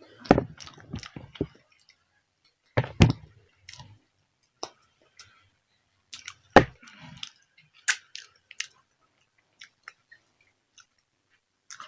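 Close-miked chewing of food: crunchy bites and wet mouth clicks in bursts a few seconds apart, thinning to scattered faint clicks in the last few seconds.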